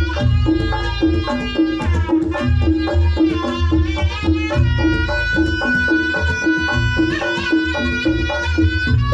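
Reog Ponorogo gamelan music: a slompret (reed shawm) melody with bending notes over kendang drums and a repeating gong-chime pattern, played loud and steady.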